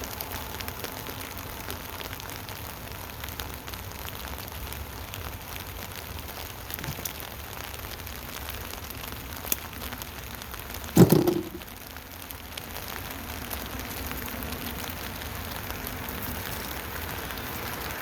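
Steady rain falling on a tent canopy overhead. About eleven seconds in, a brief louder thump stands out for about half a second.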